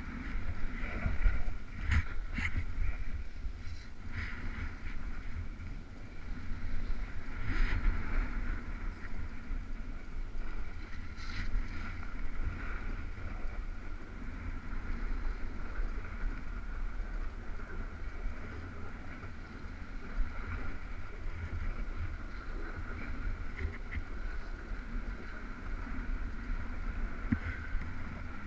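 Continuous rumble and scrape of a ride sliding over snow down a bumpy run, with wind buffeting the microphone. A few sharper knocks from bumps stand out: about two seconds in, near eight seconds and near eleven seconds.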